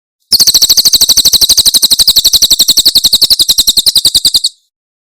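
Cililin bird giving its 'tembakan' call: a loud, rapid trill of about twelve sharp, high notes a second that runs for about four seconds and cuts off suddenly.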